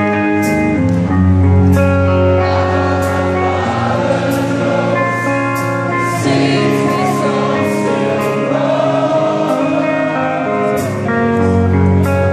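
Rock band playing a slow ballad live in an arena, with long held guitar and bass notes under singing that sounds like many voices, the crowd singing along.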